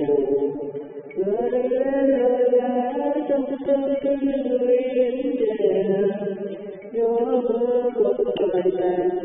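A voice singing a slow Vietnamese song in long held, wavering phrases, with short breaks about a second in and again near seven seconds. The recording sounds muffled, lacking its high tones.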